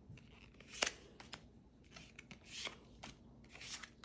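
Pokémon trading cards being handled and flicked through in the hands: a series of short, dry card snaps and rustles, the sharpest about a second in.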